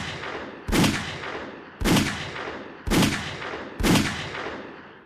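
Five shots from a .380 ACP micro-compact pistol, about a second apart, each a sharp crack that rings out and fades before the next.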